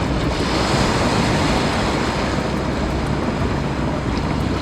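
Steady rush of ocean surf washing on the beach, mixed with wind buffeting the microphone.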